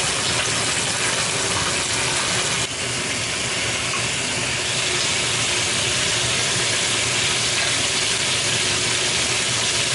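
Tautog heads and bones sizzling steadily in hot oil in a stainless steel sauté pan while they are turned over with tongs; the sizzle gets a little brighter about three seconds in.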